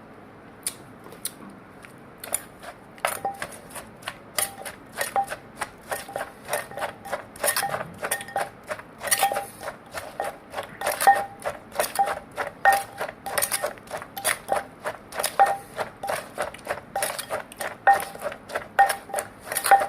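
Pestle pounding papaya salad in a mortar: a quick, steady rhythm of knocks, about three to four a second, each with a short ringing note. The strokes are sparse at first and settle into the steady beat about three seconds in.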